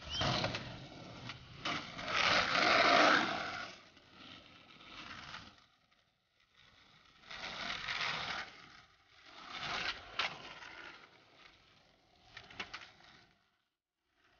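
Skateboard wheels rolling over concrete and asphalt in swells, with sharp clacks of the board from tricks and landings. The sound drops out briefly twice, in the middle and near the end.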